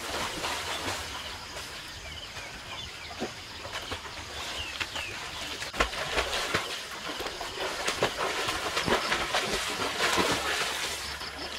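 Water splashing and churning irregularly as two people swim in a small outdoor pool.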